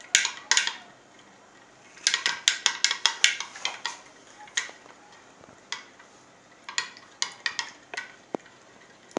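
A spoon clinking against glass tumblers in sharp taps, with a quick run of about ten taps around two seconds in and scattered taps after.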